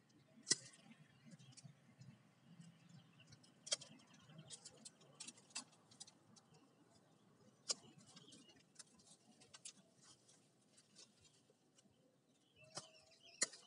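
Faint, irregular crackles and snaps of dry bamboo sheaths and twigs being pulled and cut off a bamboo root clump, with a few sharper snaps among them.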